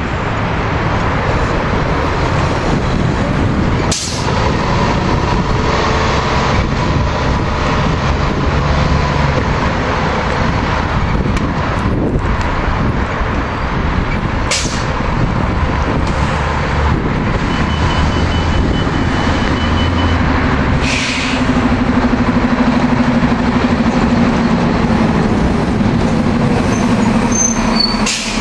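City transit buses' diesel engines running, with four short air-brake hisses spread through.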